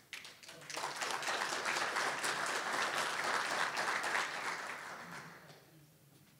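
Audience applauding, swelling about a second in and fading out near the end.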